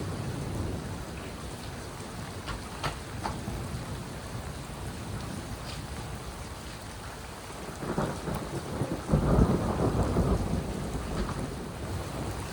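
Steady rain falling during a thunderstorm, with a few sharp ticks early on. Thunder rumbles in about eight seconds in and is loudest a second or two later.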